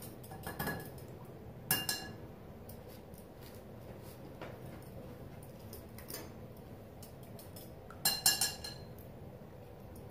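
Light clinks of hard objects being handled on a work table: one about two seconds in and a quick cluster of about four near the end, the loudest, each with a short ring, among a few fainter ticks.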